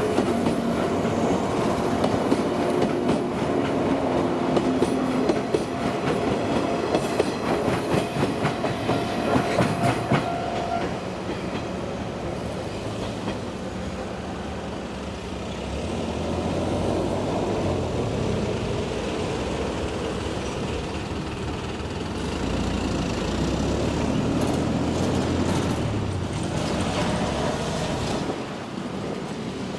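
A train passing on the track, its wheels clattering over the rail joints with steady tones above for about the first ten seconds. After that comes a lower, steady rumble that fades near the end.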